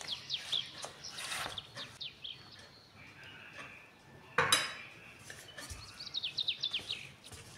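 Silicone spatula stirring flour and dough in a glass bowl, with one sharp knock against the glass about four and a half seconds in. Quick runs of high, falling chirps, like birdsong, come near the start and again about six seconds in.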